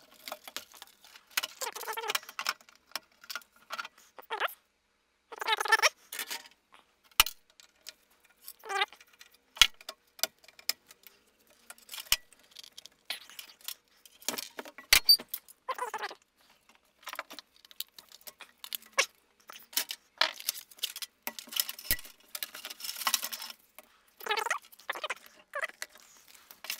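Irregular clicks, clatter and rustling as circuit boards are pulled out of their slots in a metal instrument chassis and ribbon cables are shifted about.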